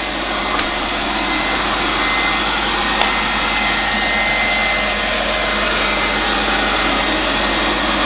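Lefant M210 robot vacuum running steadily in spot-cleaning mode, its suction motor and brushes working in a circular pattern over a hard floor. A thin steady whine sits over the running noise, and a couple of small clicks come through.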